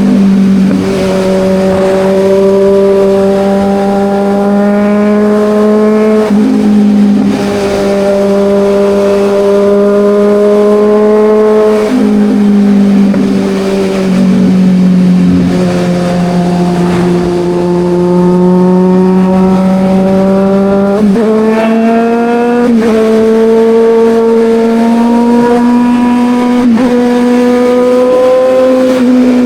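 Kawasaki Ninja 1000's inline-four engine running under way, its pitch climbing and easing with road speed. Its note breaks and jumps several times, once every few seconds, at the gear changes.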